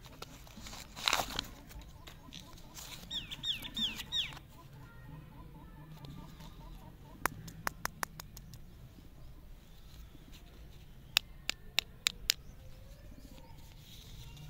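Plastic lollipop wrappers crinkling and crackling as they are peeled open by hand, with groups of sharp clicks later on. A bird chirps several times in quick succession about three seconds in.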